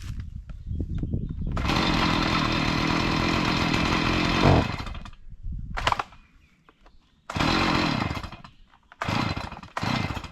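Chainsaw running under load: one steady cut of about three seconds, then a few shorter bursts with quiet gaps between.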